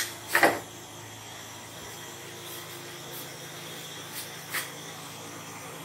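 Steady hiss from a large pot of vegetable soup cooking on a gas burner. A sharp knock about half a second in, and two lighter knocks a little after four seconds.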